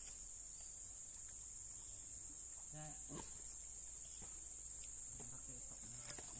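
Steady high-pitched insect drone, with faint voices briefly a few seconds in and again near the end.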